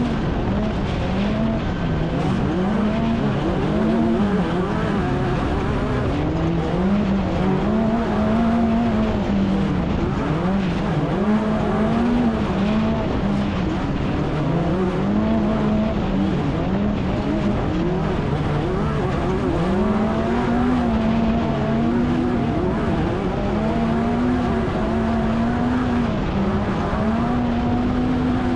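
Off-road race vehicle engine running hard, its pitch rising and falling over and over as the throttle is worked through the course, over a steady rush of noise.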